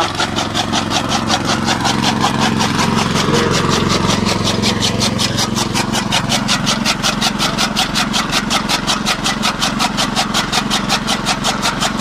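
Engine-driven flywheel chaff cutter (toka) chopping fresh green fodder into fine pieces. The small stationary engine runs steadily under the fast, even, rhythmic chop of the cutter blades, several strokes a second.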